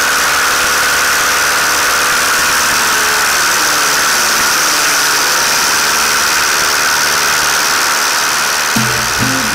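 Single-engine light aircraft (Van's RV-9A) engine and propeller running steadily at high power during the takeoff roll, heard from a camera under the wing with air rushing past the microphone. Music comes in near the end.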